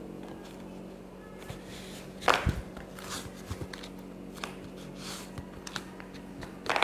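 Handling sounds from a kretek joint-cracking manipulation of a patient lying on his side. A loud sudden sound comes about two seconds in and another near the end, with small knocks and rustles between.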